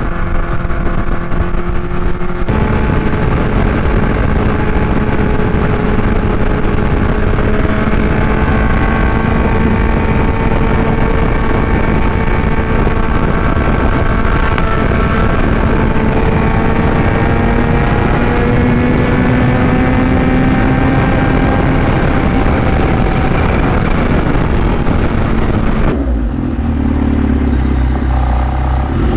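Kawasaki Ninja H2's supercharged inline-four, breathing through a Vandemon aftermarket exhaust, running at high revs under way, held high to heat-cycle the new headers. Its pitch climbs slowly for most of the stretch, then drops near the end as the bike slows.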